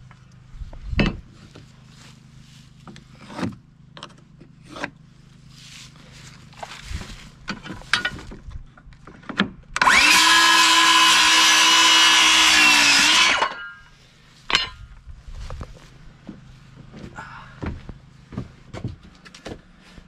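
DeWalt cordless circular saw spinning up and cutting through a pressure-treated pine board for about three and a half seconds, starting about ten seconds in, then winding down. Scattered knocks and clicks come before and after the cut.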